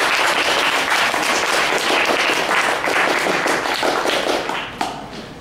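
Audience applauding a speaker's introduction, many hands clapping at once; the applause thins and fades near the end.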